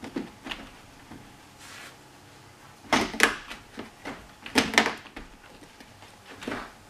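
Fan-Tastic Fan roof vent being worked down into the square opening in the trailer roof, knocking and scraping against the edges of the hole. There are clusters of knocks, the loudest about three and five seconds in, with lighter taps between.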